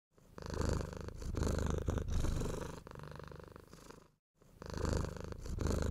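A domestic cat purring, swelling and fading with each breath, with a short break about four seconds in.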